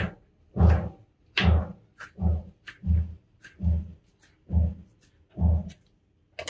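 Kitchen knife slicing a green capsicum into strips on a cutting board: a steady run of about eight chops, roughly one every three-quarters of a second, each a low thud of the blade hitting the board.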